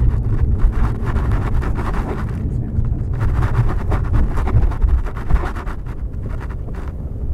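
Car driving along a street, heard from inside the cabin: a steady low engine and road rumble.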